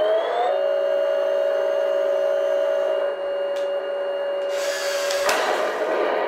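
Heng Long RC M41 tank's TK 6.0 sound board playing a steady simulated engine idle through its small speaker, the pitch settling briefly at the start, over the whir of the small turret-traverse motor. About five seconds in comes a short burst of hiss ending in a sharp crack.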